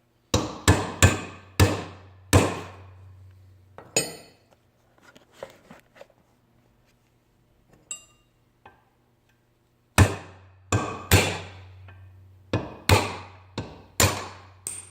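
Hammer striking a punch to drive the old pin out of a Honda door hinge: sharp ringing metallic blows. About six come in the first few seconds, then a pause, then about ten quicker blows from about ten seconds in.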